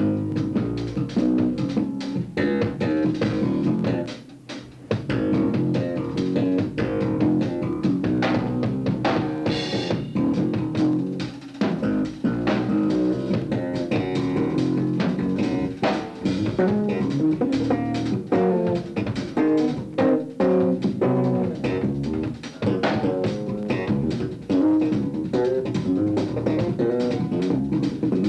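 Live instrumental band music: electric bass guitar and a drum kit playing together, with many quick drum and cymbal strokes over the bass line.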